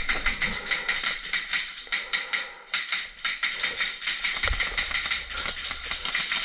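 Airsoft guns firing: a dense run of rapid, irregular clicks and snaps.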